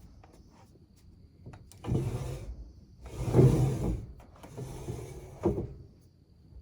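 Steady high-pitched chorus of calling insects, with three loud rough rustling or whirring bursts about two, three and a half, and five seconds in.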